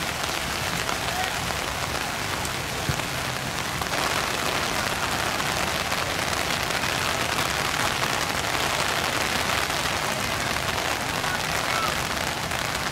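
Heavy rain falling steadily, an even hiss of pouring rain that grows a little louder about four seconds in.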